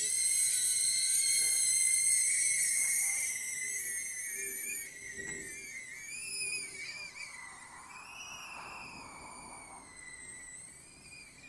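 Motors and propellers of a BetaFPV Cetus tiny-whoop FPV drone in flight, a high-pitched whine whose pitch wavers up and down with the throttle. It is loudest at takeoff and grows gradually fainter.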